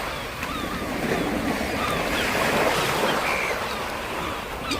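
Lake waves washing against the shore, a steady rush of water, with many short high chirps scattered through it.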